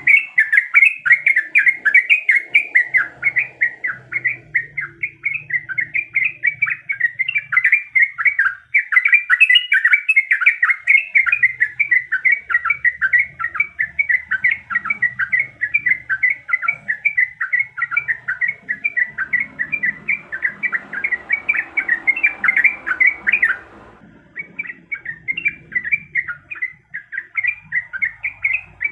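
Yellow-vented bulbul singing a long, rapid run of chattering, bubbling notes with hardly a pause, breaking off briefly about four-fifths of the way through before carrying on.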